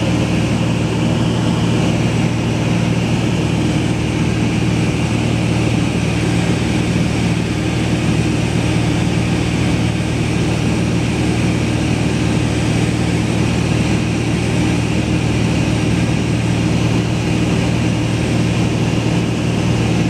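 Light propeller aircraft's engine droning steadily in flight, heard from inside the cabin: a constant low hum over a steady rush of airflow noise.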